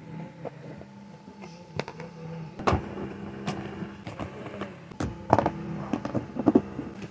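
Clear hard-plastic storage boxes being handled and set down on a table: a string of short knocks, clicks and rattles, with a cluster of louder knocks past the middle, over a steady low hum.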